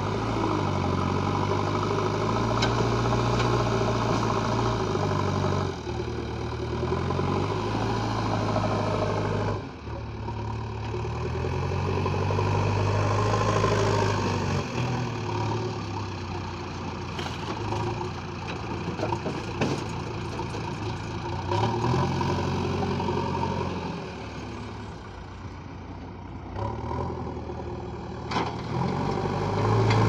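JCB 3DX backhoe loader's diesel engine running under load, its revs rising and falling several times as the front loader scoops soil and lifts it. Partway through there are a few sharp knocks and rattles as the bucket load is tipped into the steel body of a tipper truck.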